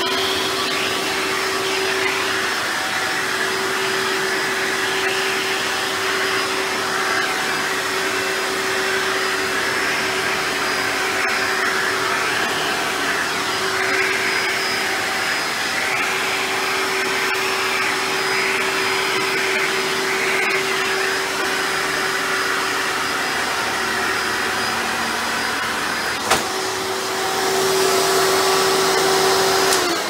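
Hoover upright vacuum cleaner running with its hose and dusting tool in use: a steady motor hum under a rushing suction sound that rises and falls as the tool moves over fabric and window blinds. One sharp knock near the end, after which the suction sounds louder.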